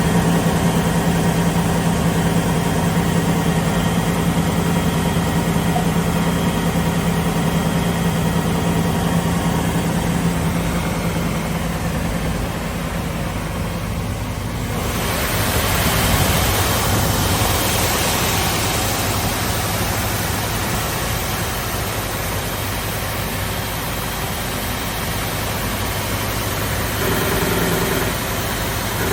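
SCM Sandya 3S wide-belt sander running empty, with no workpiece fed through, its 18.5 kW sanding-unit motor giving a steady hum. About halfway through, a broad steady hiss comes in suddenly and continues.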